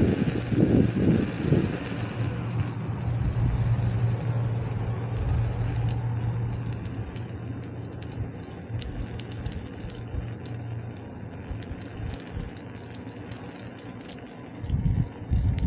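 Street-riding noise: wind buffeting the microphone for the first couple of seconds, then a steady low motor-vehicle hum that fades out about two-thirds of the way through. Scattered light clicks run through the second half.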